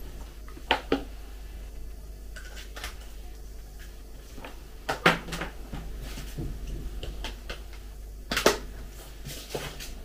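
Scattered clicks and knocks from handling a USB cable and its plugs as a phone is unplugged to free the charger, with louder clacks about five and eight and a half seconds in.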